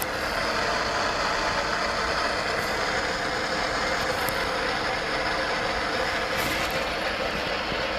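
Steady hiss of radio static, the white noise of a ghost box used to listen for spirit voices, with a few faint ticks.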